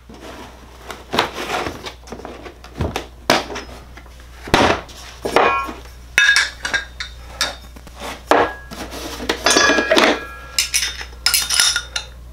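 Metal hole saw bits clinking and knocking together as they are handled. The knocks and clinks come irregularly throughout, and several ring briefly.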